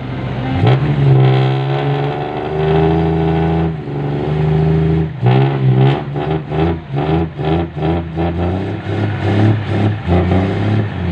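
Isuzu Deca dump truck's diesel engine revving hard under load as the soil-laden truck tries to pull out of mud with its wheels spinning. The revs climb about a second in and hold high for a few seconds, dip, then rise and fall in quick surges two or three times a second.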